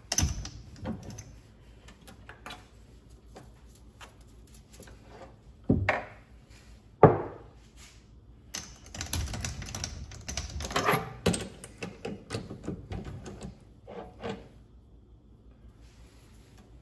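Hard objects being handled and set down: a few separate sharp knocks, the loudest about seven seconds in, then a run of rattling clatter that stops before the end.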